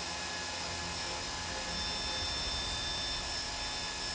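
3D-printed PLA 120 mm fan driven by a race-quad brushless motor, spinning at just over 5,000 RPM near half throttle. It makes a steady, pretty loud whir of rushing air with a thin, high motor whine over it.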